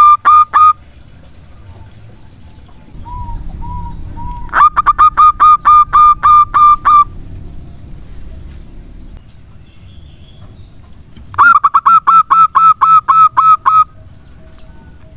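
Zebra dove (perkutut) song: bursts of rapid, clipped cooing notes, about five a second. One burst ends just under a second in, and two more follow, around the middle and near the end.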